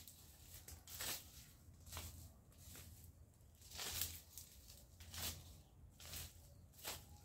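Dry leaves and twigs rustling and scraping as a brush pile is raked with a long-handled tool, in uneven strokes about once a second, the loudest about four seconds in, over a low steady hum.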